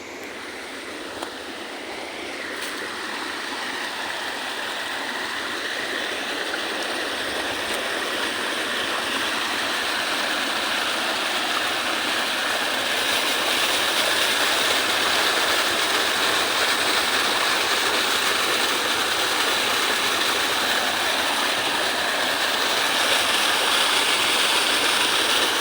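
A tall waterfall's water rushing in a steady roar, growing gradually louder over the first half and then holding.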